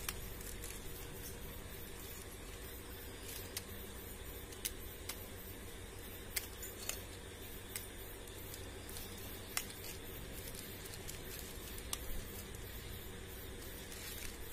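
Steady low room hum with a dozen or so short, sharp clicks at irregular intervals.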